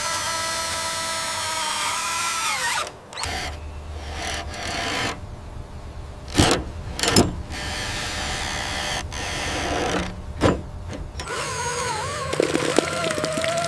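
A whining motor, like a power drill, runs steadily, then winds down and stops about three seconds in. A low rumble follows with three sharp knocks, then the whine starts again near the end, wavering in pitch.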